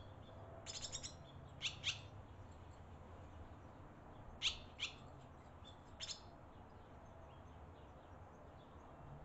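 Barn swallows chirping: short, high chirps in a few scattered groups, a quick cluster about a second in and single chirps around four and a half and six seconds.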